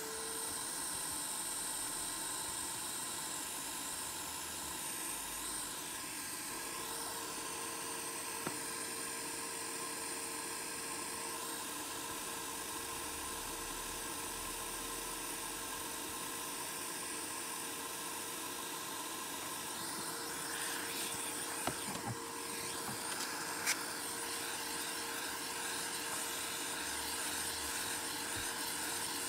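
A small electric motor-driven blower running steadily, giving a rushing hiss of air over a constant mid-pitched whine. Two small clicks come about three-quarters of the way through.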